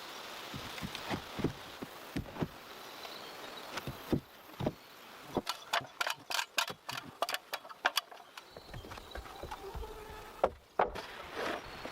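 Irregular knocks and clicks of hand-tool work on wood, coming thick and fast about halfway through, then a couple of sharper knocks near the end.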